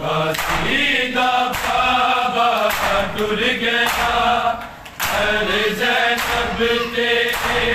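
Men singing a Punjabi noha (Shia lament) in chorus, with hands slapping bare chests in time about once a second (matam). The singing breaks off briefly about two-thirds of the way through.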